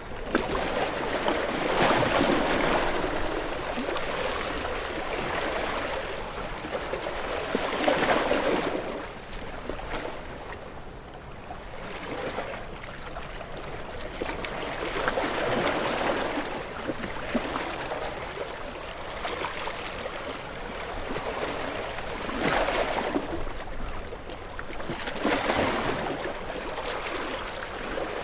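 Sea waves breaking and washing up the shore: a rush of surf that swells and falls back every few seconds, with the biggest breaks near the start and about eight seconds in.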